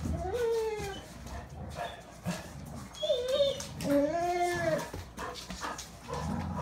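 Golden retriever whining in three short rising-and-falling whines, eager to get a cat to play.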